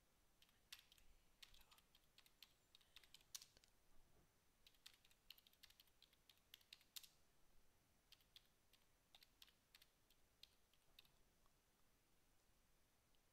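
Faint typing on a computer keyboard: irregular keystrokes in quick clusters with short pauses, stopping about two seconds before the end.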